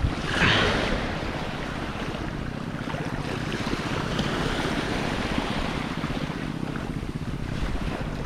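Small waves washing and breaking over a shallow reef flat, with a louder wash of water about half a second in, and wind buffeting the microphone.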